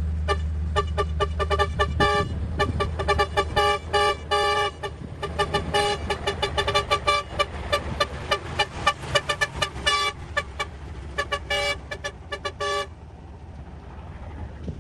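A vehicle horn sounding a long, rapid series of short toots over a steady low engine hum; the toots stop about 13 seconds in, leaving the hum.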